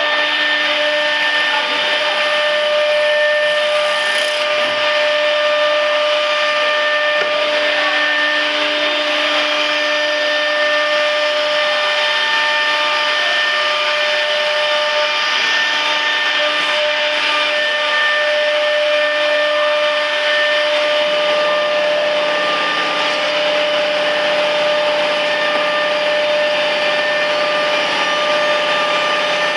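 Chencan CC-MS1325AC CNC router running, its electric spindle giving a steady high whine with a few fixed tones over a machine hiss. About two-thirds of the way through a lower hum joins in.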